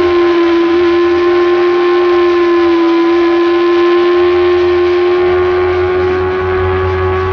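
Motorcycle engine held at steady revs through a long corner, its note staying nearly level with only a slight dip and recovery, over steady wind rush on the microphone.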